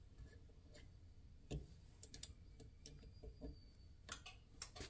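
Faint, scattered clicks and light taps from hands and a small tool working the brass valves of a heating manifold, shutting off a radiator's flow and return. There are a few single clicks, with a small cluster near the end.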